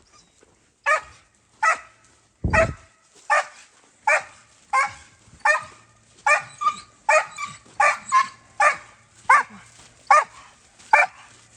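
Dog barking over and over at a steady pace, about one and a half barks a second, starting about a second in.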